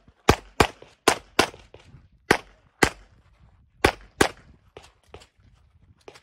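Handgun shots fired in quick pairs during a USPSA course of fire: eight loud shots in four pairs, each pair about a third of a second apart, followed by a few fainter reports near the end.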